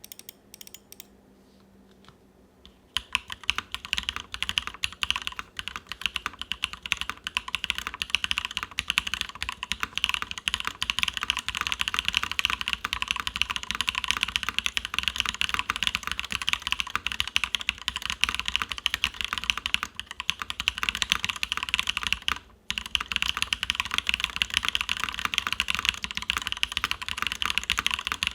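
Continuous fast typing on an all-aluminium KBDFans Endless-80 mechanical keyboard with lubed Durock POM linear switches in an aluminium top-mount plate, PBT keycaps and case foam. A few faint clicks come first, then dense, steady key clacking starts about three seconds in, with a brief pause near twenty-three seconds.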